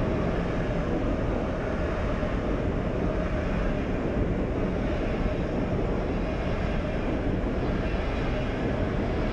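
SBB double-deck passenger train rolling past a station platform: a steady, continuous rumble of wheels on rails with a faint steady hum.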